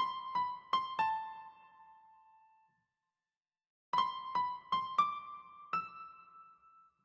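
Background music: a simple keyboard melody in the sound of an electric piano. A quick phrase of four notes ends on a note left to ring and fade, then a pause, then a second phrase of five notes ends on a held note.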